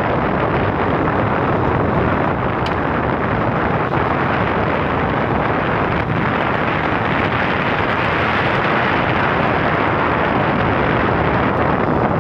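Steady rush of wind noise on the microphone of a moving motorcycle, mixed with the motorbike's running and road noise.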